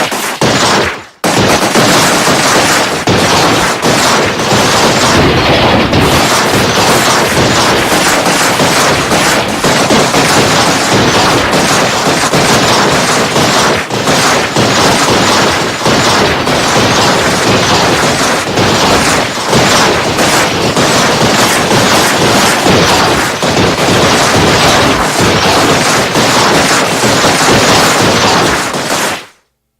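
Battle sound effect: dense, continuous gunfire from many weapons at once, rapid shots and automatic bursts overlapping without pause. It starts about a second in after a brief gap and cuts off sharply near the end.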